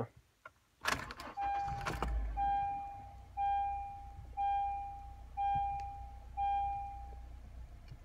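Key clicking and rattling as it turns in a 2014 Honda CR-V's ignition lock cylinder, which has been cleaned of jammed dirt and now turns smoothly. Then the car's dashboard warning chime sounds six times, about once a second, over a low steady hum.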